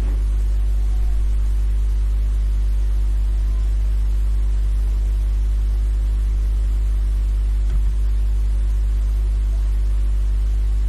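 Steady electrical mains hum at a low pitch with a ladder of overtones, unchanging throughout, with a single faint click about eight seconds in.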